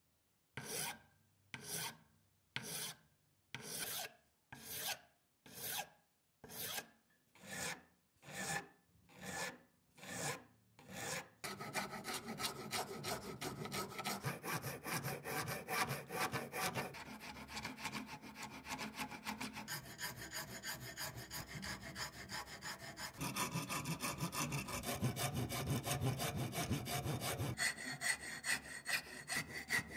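Hand filing: about eleven slow, separate file strokes at roughly one a second, then fast continuous filing that changes in tone several times.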